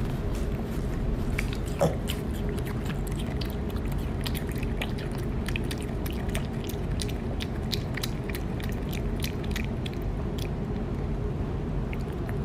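Piglet chewing a piece of food with its mouth open: many small sharp clicks over a steady low background hum, with a brief higher sound about two seconds in.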